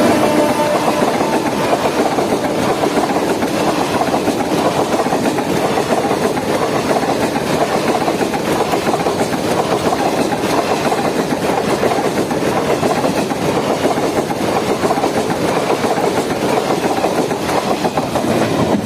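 A train passing close at speed: the steady rumble and clatter of its coaches' wheels on the rails. A horn drops in pitch and fades out just after the start.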